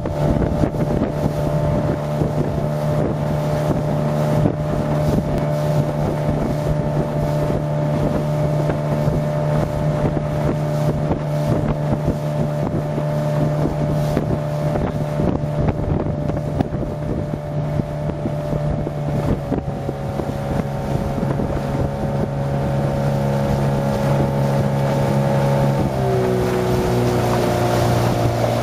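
Motorboat engine running steadily under the rush of spray and wind as the boat cuts through the water. The engine note drops in pitch about two-thirds of the way through and falls again near the end as the boat slows.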